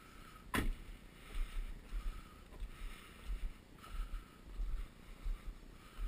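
A van's driver door shut with one solid thud about half a second in, followed by footsteps on wet tarmac, a soft thud about every half second.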